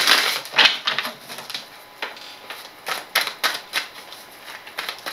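A tarot deck being shuffled by hand, in irregular flurries of quick card flicks and taps.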